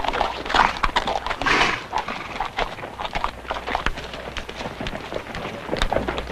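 Horses' hooves clopping in an irregular patter of sharp knocks on the ground.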